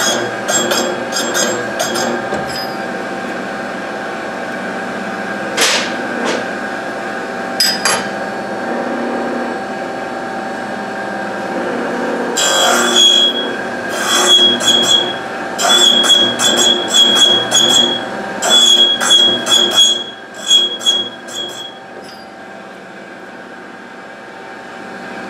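Rod cap grinder running with a steady hum while a GM connecting rod's parting face is fed across its abrasive wheel, giving a quick series of short grinding scrapes, about two a second, as half-thousandth passes are taken to true the face flat. The scraping stops a couple of seconds before the end and the machine sound falls away.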